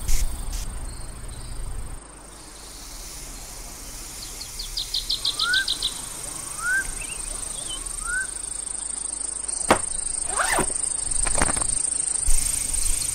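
Summer insect ambience: a steady high-pitched insect buzz that grows louder about five seconds in, with a short cricket-like trill and three short rising chirps. A few short sharp sounds come about ten seconds in.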